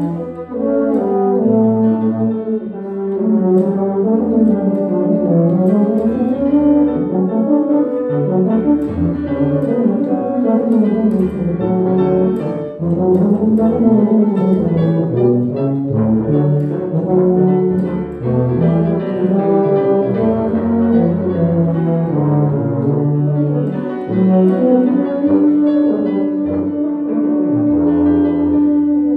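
Two tubas playing a classical duet, their melodic lines weaving up and down around each other, with a long held note near the end.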